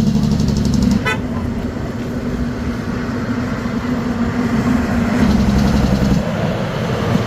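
Road traffic with a vehicle horn sounding in long held blasts, stopping about a second in and sounding again later, over the running of passing vehicles.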